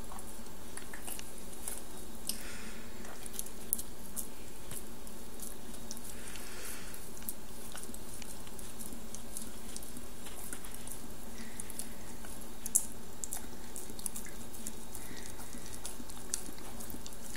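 Siberian husky licking and smacking at sticky peanut butter: a long run of small, irregular wet clicks from its tongue and lips, with a few sharper smacks, over a steady low hum.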